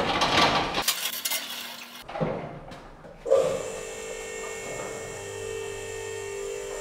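A BendPak four-post car lift rolling on its caster wheels over a concrete floor for about the first second. A little over three seconds in, an electric motor starts and runs steadily with a whine and a low hum: the lift's hydraulic power unit.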